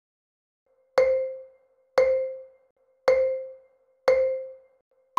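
Countdown timer sound effect: four short, quickly fading notes on the same pitch about a second apart, then a single higher note at the very end marking time up.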